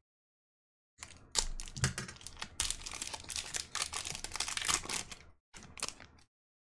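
Foil wrapper of a 2020 Topps Gypsy Queen baseball card pack being torn open and crinkled in the hands. A dense crackling starts about a second in and lasts about four seconds, followed by a short burst of crinkling near the end.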